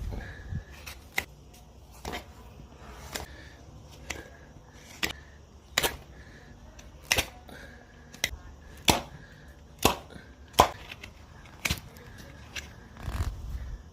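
Farrier's hoof nippers snipping through hoof horn during hoof trimming: a series of sharp, short cracks, irregular, about one a second.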